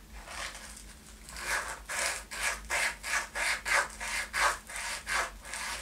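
Sandpaper rubbed back and forth by hand in a guitar body's jack routing, scraping away the finish so the output jack will fit. A run of quick scratchy strokes, about three a second, growing louder and more distinct from about a second in.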